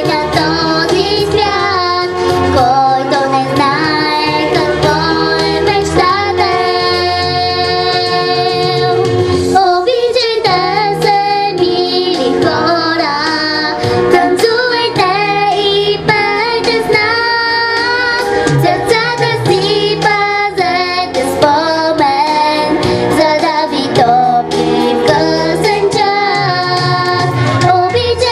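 A young girl singing a song into a handheld microphone, amplified, over instrumental accompaniment with a steady bass line.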